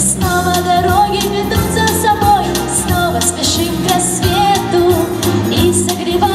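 A girl singing a song into a handheld microphone over an instrumental backing.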